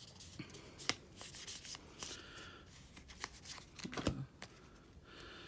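Magic: The Gathering trading cards being thumbed through one at a time in the hands: quiet, scattered flicks and slides of card against card.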